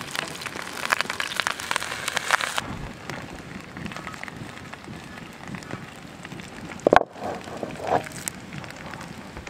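Diced cured pork sizzling and spitting in a cast-iron pan as chopped parsley goes in. About two and a half seconds in, the sound changes to a campfire crackling. About seven seconds in, the heavy iron pan is set down over the fire with a sharp, ringing clank, and a lighter knock follows a second later.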